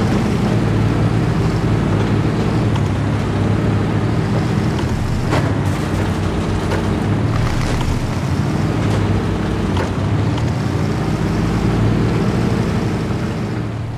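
Radio-controlled scale crawler trucks running steadily: a constant whirring hum from their electric motors and geartrains, with a few light clicks from the tyres on the sand and stones.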